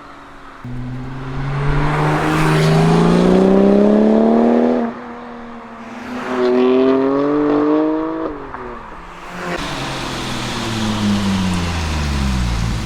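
Porsche 997 Turbo's twin-turbo flat-six, breathing through a SOUL Competition exhaust, accelerating hard: the engine note climbs in pitch, cuts off abruptly about five seconds in, climbs again and cuts off about eight seconds in. After that, road noise rises and the engine note falls in pitch near the end.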